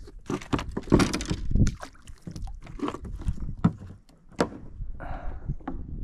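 Water splashing and knocking around a kayak on shallow water, an irregular series of sharp strokes, loudest about a second in and again just after four seconds.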